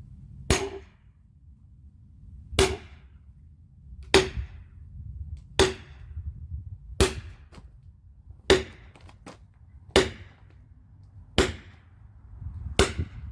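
Axe striking firewood being split: nine sharp, evenly paced chopping blows about one and a half seconds apart.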